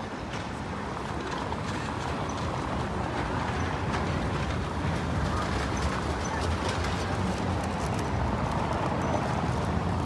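Busy town-square ambience: the murmur of a crowd and footsteps on cobblestones, a steady noise that slowly grows a little louder.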